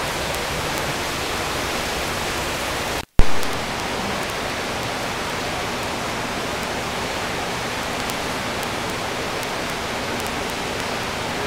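Steady rushing noise with no pitch and an even level. About three seconds in it cuts out for a moment and comes back with a sharp, loud click.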